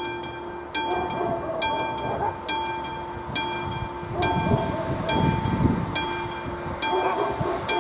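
Classic level-crossing warning bell ringing in a steady rhythm, one clang a little under every second. It signals that the crossing is active and a train is approaching. A low rushing noise swells beneath it about halfway through.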